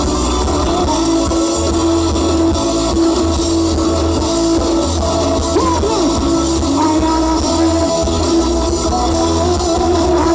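Live band music played loud on electric guitars and a drum kit, with a heavy bass line and a steady beat.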